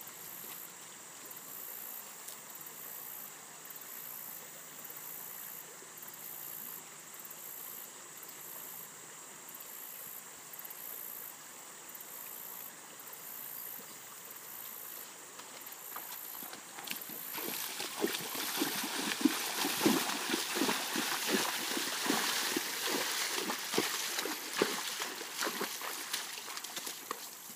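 A horse wading through a shallow creek, its hooves splashing loudly and close in quick, uneven strokes, starting about two-thirds of the way in. Before that there is only the quieter steady trickle of the creek.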